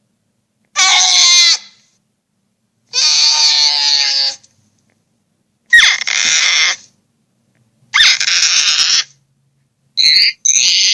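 Giant-creature sound effects: four separate cries of about a second each, with a wavering pitch, then a quick run of shorter cries near the end. Each cry cuts off into dead silence.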